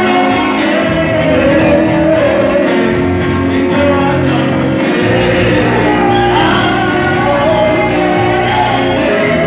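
Church choir singing with amplified instrumental backing: a steady, loud song with sustained bass notes under the voices.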